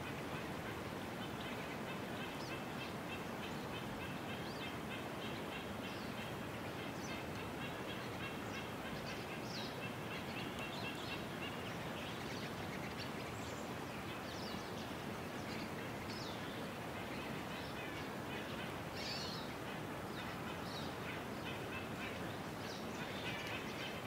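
Outdoor ambience: a steady rushing background with small birds chirping and twittering throughout, including a run of quick repeated notes in the first half.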